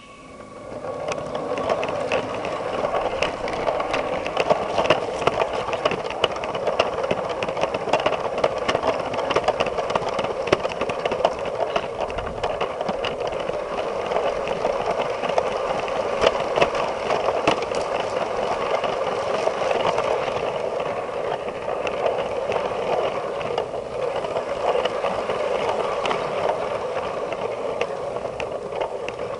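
Lego train's motor and plastic wheels running along plastic track, heard from a camera riding on the train: a steady whir with a fast scatter of clicks and rattles over the rail joints.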